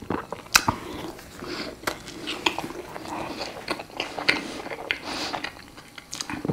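A man biting into a crispy chicken burger and chewing it, close to a clip-on microphone: a string of short, irregular mouth clicks and smacks.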